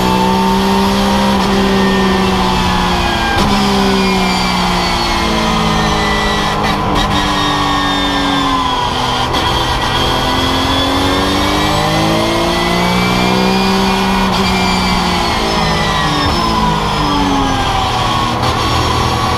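Porsche 911 GT3 Cup race car's flat-six engine at racing speed, heard from inside the stripped cockpit. Its pitch climbs through upshifts with short breaks at each gear change, then falls in steps as it downshifts under braking, twice over, and it is climbing again near the end.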